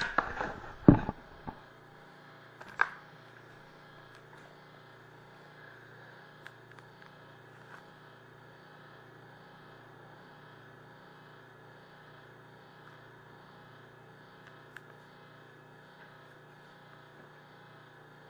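Handling noise, with knocks and bumps as the camera and a cardboard box are moved, in the first second and a half and once more near three seconds. After that, a steady low hum with a few faint clicks.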